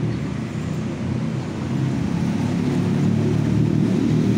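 Steady low rumble of road traffic close by, growing somewhat louder toward the end.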